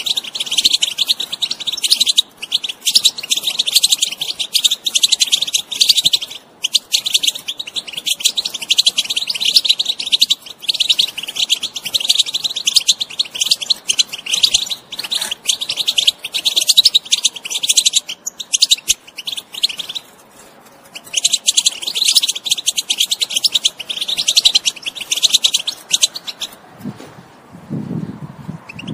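European goldfinch singing a fast, continuous twittering song, broken by one pause of about a second roughly two-thirds of the way through. A lower-pitched sound comes in near the end.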